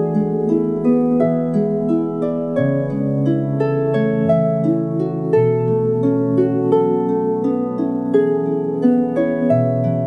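Lyre music: a flowing melody of quick plucked, ringing notes over low held notes that change every few seconds.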